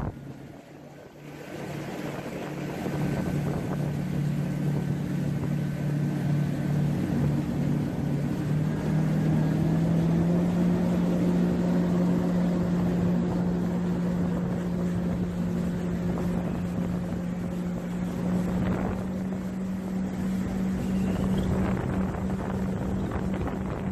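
Jet ski engine running at a steady cruising pitch, which steps up a little about ten seconds in and then holds.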